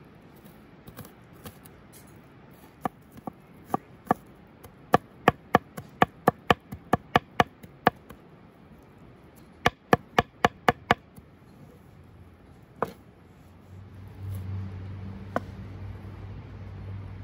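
Large kitchen knife chopping fresh herbs and garlic on a wooden cutting board: sharp knocks of the blade on the board, in quick runs of about three a second, stopping after about eleven seconds. A low steady hum comes in near the end.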